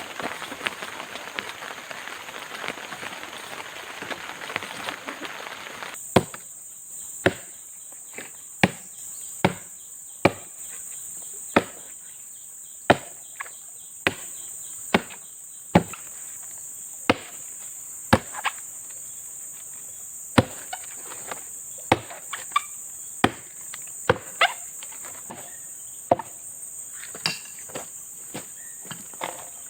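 Steady rain, then from about six seconds in a blade chopping wood in sharp single strokes about once a second, over a steady high chorus of forest insects.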